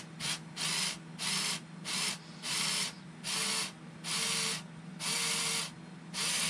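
A small electric motor whirring in short repeated bursts, about one a second, each a little longer than the last, with a faint whine in the later bursts.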